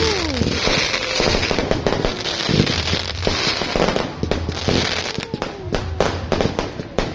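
Fireworks going off in a display: a dense run of rapid crackles and sharp bangs over a hissing wash, with no let-up.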